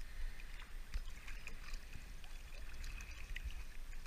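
Water sloshing and splashing at the surface around a dive float tube, with small drips and splashes close to the microphone over a low rumble.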